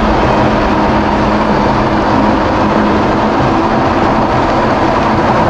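2017 Kawasaki SX-R 1500 stand-up jet ski running at a steady cruising speed: the steady drone of its four-cylinder engine mixed with the rush of water along the hull.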